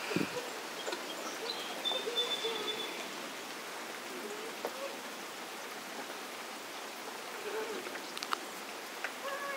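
Steady rain falling, an even hiss, with a few faint clicks and a brief thin high tone about two seconds in.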